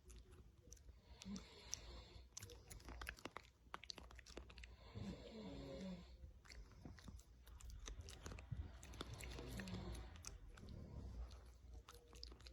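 A dog chewing and crunching food up close, quiet, with irregular crisp clicks of teeth on food.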